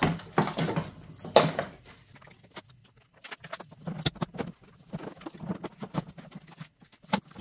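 Plastic snowmobile airbox being handled and worked into place over the engine: irregular knocks, clicks and rustles of plastic against the chassis and wiring. The loudest knock comes about a second and a half in.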